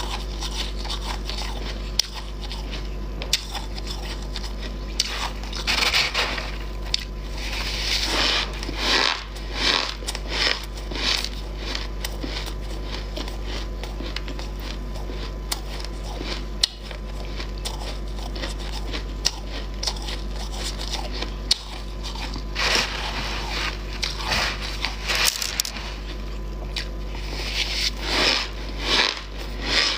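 Chunks of freezer frost being bitten and chewed close to the microphone: crisp crunching that comes in clusters of quick bites with chewing pauses between them.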